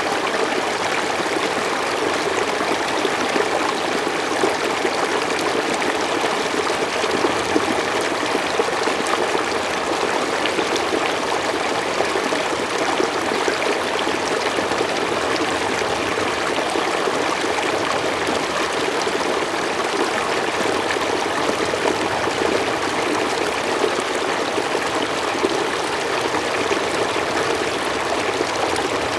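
Mountain stream flowing steadily, a constant rushing of water with small splashes and trickles.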